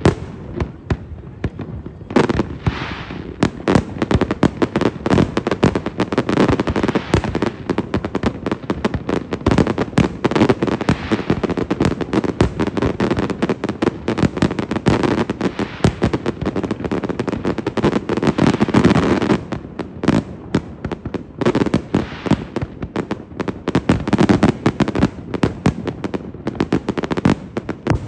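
Fireworks display: rapid, overlapping bangs and dense crackling from bursting shells, many per second. It thins briefly about two-thirds of the way through, then builds again.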